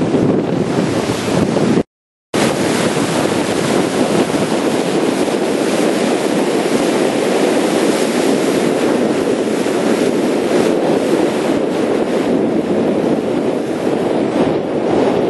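Steady rush of wind buffeting the microphone and sea water washing past the hull of a moving motor yacht. The sound drops out completely for about half a second, about two seconds in.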